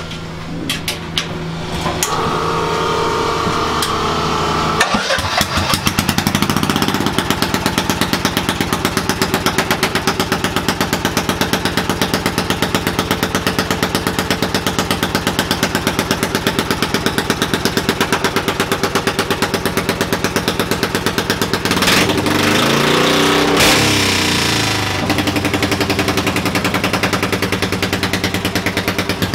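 Engine of a Cub Cadet-based pulling garden tractor running loudly with a fast, even beat from about six seconds in. It is revved up and back down once near three-quarters of the way through.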